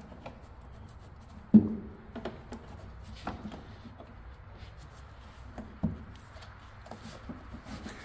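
Plastic engine cover and its fittings being handled and pressed into place on a pickup's engine: scattered knocks and clicks with some rubbing, the loudest knock about a second and a half in.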